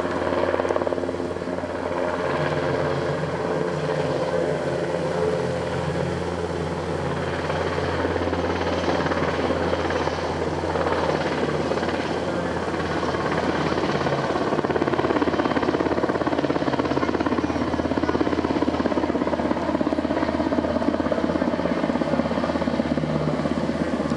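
NH90 twin-turbine military helicopter flying past overhead: steady rotor and turbine noise with several humming tones running through it.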